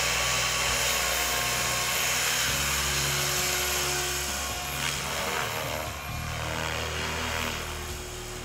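RC model helicopter's motor and main rotor running at flying speed, a steady high whine with rotor noise. It grows fainter in the second half as the helicopter climbs away.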